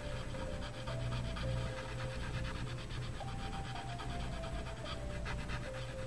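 Paper blending stump, moistened with Gamsol, rubbed in quick small circles over colored pencil on paper: a rhythmic scratchy rubbing at about four or five strokes a second. Soft background music with slow held notes plays underneath.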